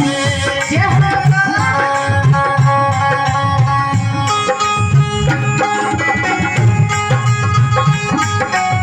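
Instrumental interlude of a devotional bhajan: a hand-drum rhythm beats steadily under sustained melody notes, after the singer's phrase trails off right at the start.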